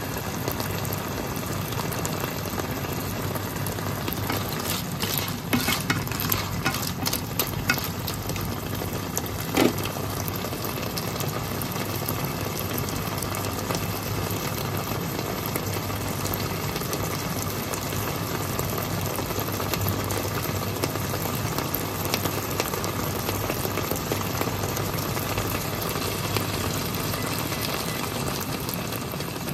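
Clams in chili-paste sauce sizzling steadily in a frying pan as they stir-fry. A few sharp clicks stand out between about five and ten seconds in.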